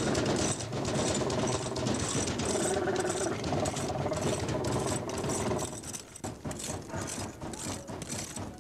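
A fast, steady mechanical rattle, like a small machine running, with some steady tones under it; it turns fainter and sparser about six seconds in.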